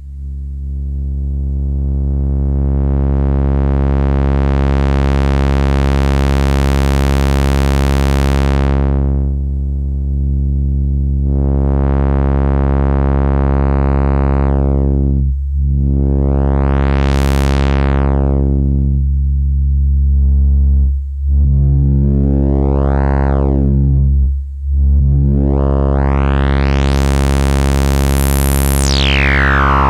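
Low synthesizer drone played through a Noise Reap Anomaly lowpass filter. The filter's cutoff is swept open and shut by hand, so the tone brightens and dulls several times. With the resonance turned up, a whistling peak glides up and down through the harmonics, and the brightest sweep comes near the end.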